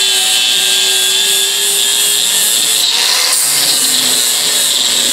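Electric angle grinder with an 80-grit abrasive disc running under load against the steel head of an antique Plumb axe, grinding away rust pitting: a loud, steady grinding with a high whine.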